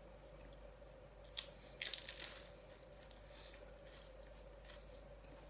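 A bite into a crisp fried spring roll (lumpiang prito): a single click, then a brief burst of crackly crunching about two seconds in.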